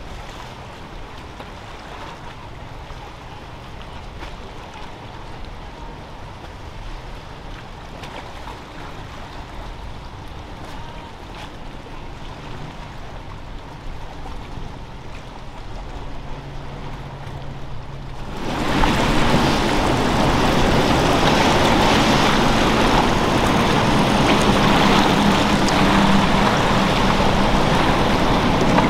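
Motorboat engines running through an inlet over the wash of water and surf. About two-thirds of the way in the sound jumps abruptly much louder, with a strong rushing wash of water over a steady engine hum.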